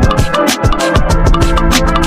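Background music with a fast, steady drum beat and heavy bass.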